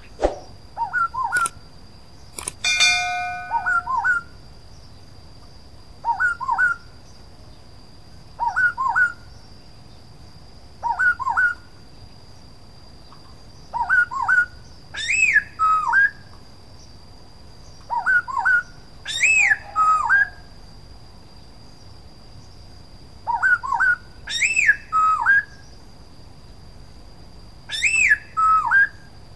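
Black-throated laughingthrush singing: short phrases of two or three clear whistled notes, repeated about every two to three seconds, several phrases with higher slurred notes added. About three seconds in, a steady tone lasts about a second.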